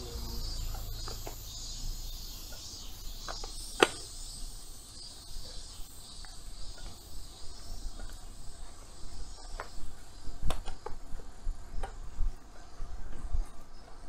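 A chorus of cicadas buzzing steadily, with a few sharp clicks, the loudest about four seconds in, and an uneven low rumble underneath.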